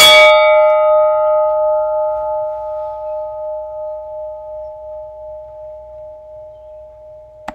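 A single struck bell rings out, one ringing tone fading slowly and evenly over several seconds until it is cut off near the end.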